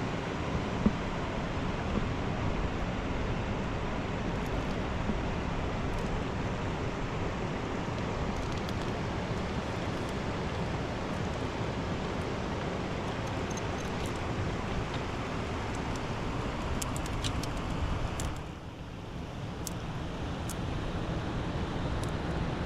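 Steady rushing of a mountain river, dipping briefly in level near the end, with a few faint ticks over it.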